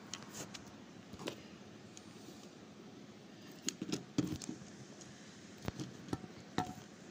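Handling noise from a phone camera: faint, scattered taps and knocks of fingers on the phone, about seven in all, with a small cluster around the middle.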